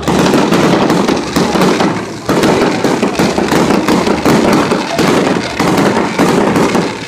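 Fireworks going off in a dense, rapid run of crackles and pops, with a brief lull about two seconds in.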